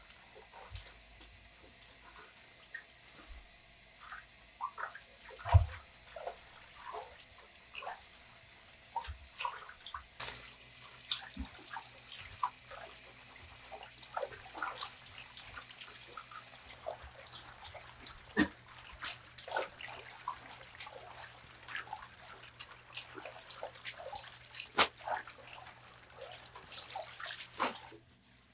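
Napa cabbage leaves being swished and rinsed by gloved hands in a plastic basin of water: irregular splashing and dripping, busier in the second half, with a few sharper splashes.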